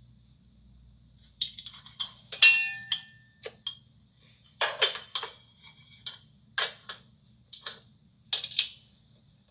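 Dishes and cutlery clattering: a series of separate sharp knocks and clinks, one ringing briefly about two and a half seconds in.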